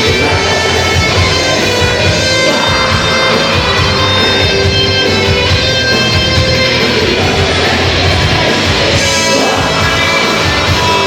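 Live metal band playing: electric guitars and drums, loud and steady throughout.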